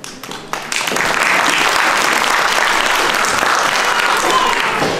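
Audience applauding: a few scattered claps, then steady applause from the whole audience from about a second in, easing off near the end.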